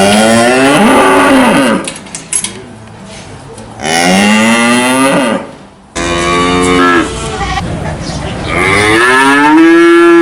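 Cattle mooing: four long moos a second or two apart, each rising and then falling in pitch, the last one higher-pitched.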